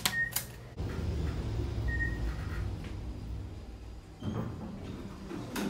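Elevator button pressed with sharp clicks and a short electronic beep, then a low rumble as the doors slide shut and the car moves, with a second short beep about two seconds in.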